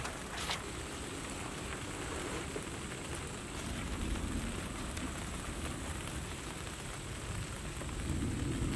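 Rain falling steadily.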